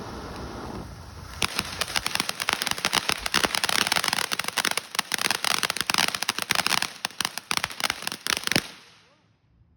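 A consumer firework going off: after a steady hiss, a rapid, dense crackling of many sharp cracks runs for about seven seconds and then stops suddenly.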